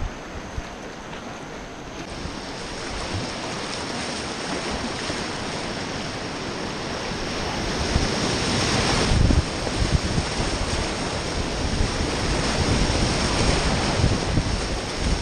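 Whitewater rapids rushing and splashing around a kayak, with water and wind buffeting the microphone in low rumbles. The rush grows louder about eight seconds in, as the boat drops into the breaking waves.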